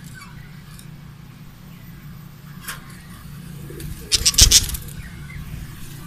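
Faint bird chirps over a steady low hum, then a loud rapid rattle about four seconds in.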